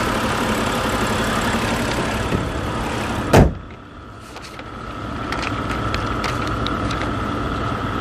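2011 BMW 528i's inline-six engine idling smoothly, running healthy after both VANOS units were replaced and the broken bolts removed. About three and a half seconds in, the hood is shut with a single loud bang.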